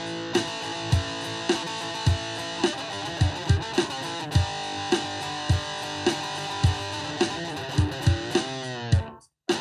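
Plugged-in electric guitar playing held melody notes over a steady low thump about twice a second. Near the end the notes bend up and down with vibrato, then the sound cuts out for a moment.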